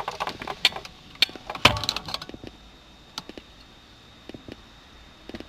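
Irregular crackling and clicking from a 2010 Dodge Caliber's speakers with the MyGig RB2 radio switched off and the key in the ignition: an interference noise tied to the installed Lockpick interface. The crackles are denser and louder in the first two seconds, then thin to sparse faint clicks over a faint steady high whine.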